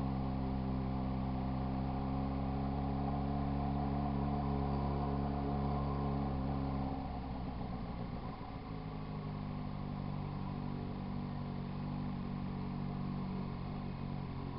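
Yamaha XJ6 motorcycle's inline-four engine running at a steady speed. About seven seconds in, the sound drops a little and turns rough for a moment, then settles back to a steady, slightly quieter note.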